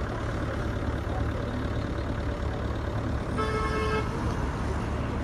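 Steady low rumble of road traffic, with one short vehicle horn toot about three and a half seconds in.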